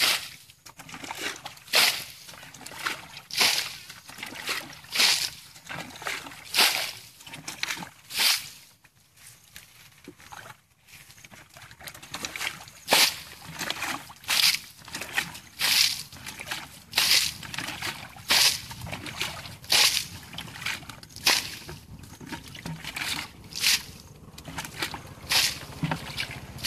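Muddy ditch water being bailed with a plastic bucket: a run of splashes, a little under one a second, as each bucketful is scooped and thrown out, with a pause of a few seconds in the middle.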